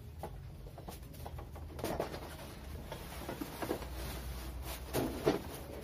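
Large flat-pack cardboard box being handled and lowered onto a concrete floor: cardboard rustles and scrapes, loudest about two seconds in and again near the end.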